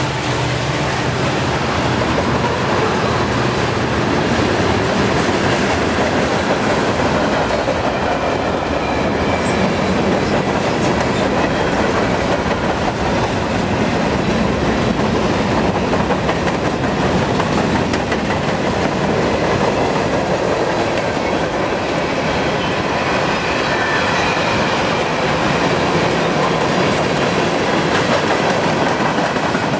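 Freight cars of a long CN train rolling past, steel wheels running on the rails with a loud, steady noise that keeps up without a break.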